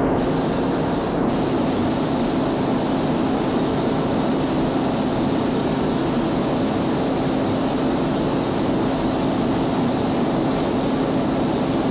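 Gravity-feed spray gun hissing steadily as it sprays hard satin lacquer onto an oak drum shell, with a brief break about a second in, over a steady low hum.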